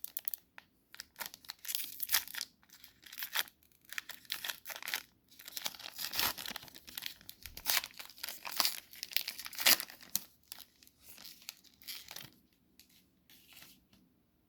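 A trading-card pack wrapper being torn open and crinkled by hand, a run of irregular crackling tears that thins out and stops near the end.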